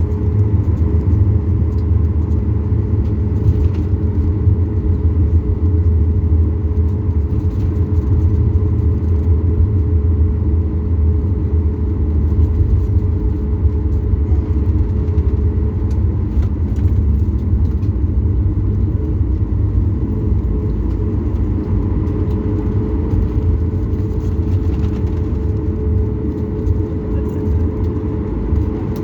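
Cabin noise of a Boeing 737 MAX 8-200 taxiing after landing: its CFM LEAP-1B engines run at idle with a steady low rumble and a constant hum, and there are a few light knocks from the airframe.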